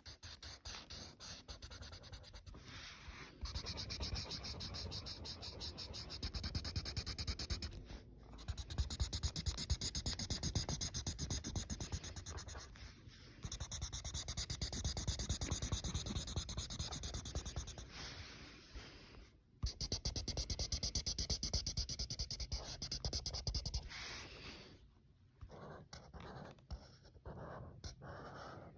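Rapid back-and-forth scratching of a colouring tool on paper, going in stretches of several seconds with brief pauses, and fainter, sparser strokes near the end.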